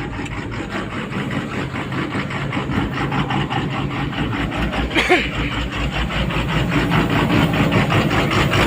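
Komatsu PC200-8 excavator's six-cylinder common-rail diesel running unevenly, with its suction control valve unplugged, in a fault traced to the rail pressure sensor. The rhythmic engine running gets louder toward the end.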